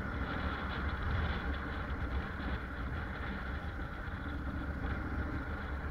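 Honda NC750X motorcycle's parallel-twin engine running at low revs as the bike rolls slowly, a steady low rumble with road and wind noise.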